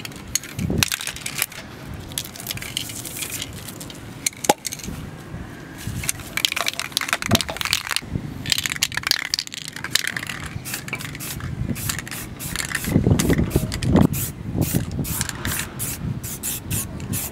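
Aerosol spray-paint can in use: the mixing ball rattling and clicking as the can is shaken, and intermittent hisses of paint spraying in short passes.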